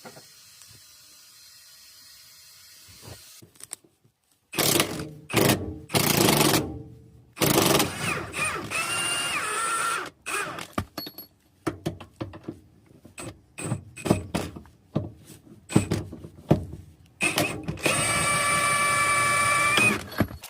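Power tool running in repeated short bursts, backing out the bolts that hold the control arm console on a VW Golf Mk5 GTI's front suspension; a steady whine rises out of two of the longer runs. Faint background hiss for the first few seconds before the tool starts.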